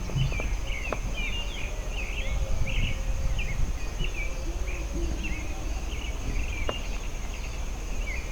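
Birds singing: a constant stream of short chirps and slurred notes, over a thin, steady, high-pitched insect drone.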